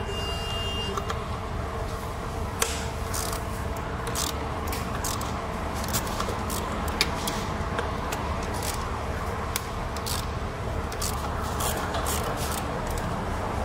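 A metal hand tool clicking and scraping irregularly on the engine's intake manifold bolts, a few sharp clicks a second, over a steady low hum.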